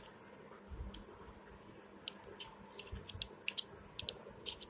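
Irregular sharp little clicks and snips as the plastic and metal parts of a Samsung flip phone are worked loose by hand during disassembly, about a dozen of them, bunched in the second half.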